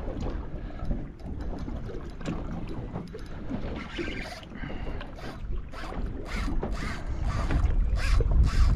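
Water lapping and slapping against a small boat's hull, with wind buffeting the microphone; it grows louder over the last couple of seconds.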